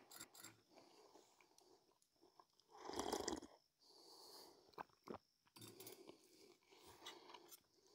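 Near silence with faint eating sounds, a brief soft noise about three seconds in and a couple of small clicks a little later.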